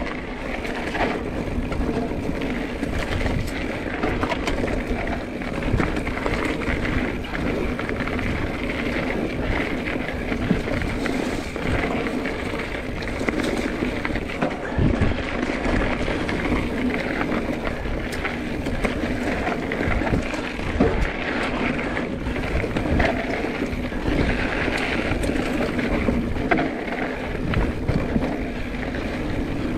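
Mountain bike riding along a dirt singletrack: a steady rolling noise from the tyres on the trail, with frequent short knocks and rattles from the bike over bumps.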